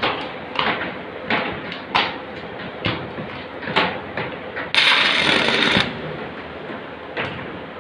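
A series of sharp metallic knocks on steel floor decking, then about a second of loud hissing crackle from an arc-welding arc struck on the deck.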